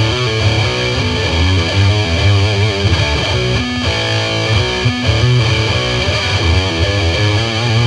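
Distorted electric guitar playing a melodic line, some notes wavering and bending in pitch, over a steady low bass.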